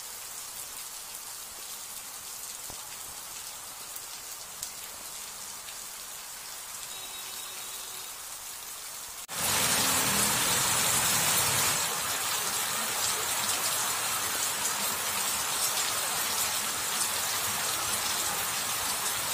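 Heavy monsoon rain pouring onto a flooded road, a steady hiss of drops hitting standing water. A little past halfway it jumps suddenly louder and fuller.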